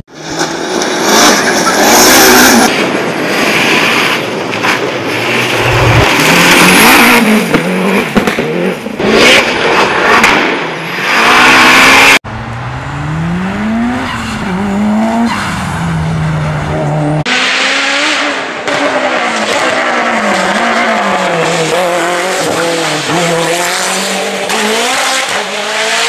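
Turbocharged Mitsubishi Lancer Evolution cars driven hard. First a loud, dense engine-and-gravel roar from a rally car at full throttle, then, after an abrupt change about twelve seconds in, engines revving up and dropping back over and over as they shift gears. The sound changes abruptly again about seventeen seconds in.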